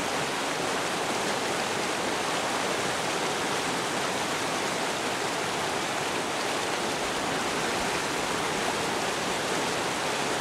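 Steady rushing of river water, an even unbroken rush with no distinct splashes.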